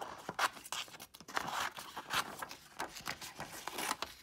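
Scissors cutting through a glossy magazine page: a run of quick snips, about two a second, with the stiff paper rustling as it is handled.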